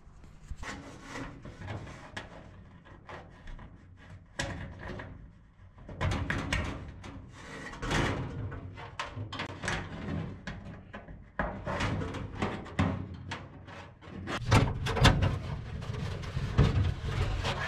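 Irregular knocks, taps and rubbing as hands and arms work plastic static-line tubing and fittings against an aluminium sheet-metal fuselage, getting louder and busier in the last few seconds.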